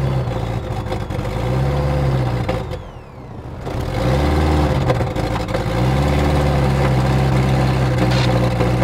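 Light airplane's piston engine starting after years of storage: it sputters with its speed rising and falling and dips about three seconds in, then catches and runs steadily from about six seconds in.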